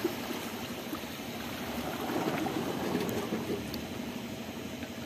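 Small sea waves washing and lapping against shoreline rocks, a steady wash of water.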